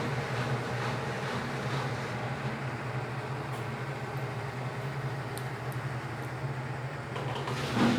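Midea 12 kg washing machine running with a steady motor hum and churning, getting briefly louder near the end.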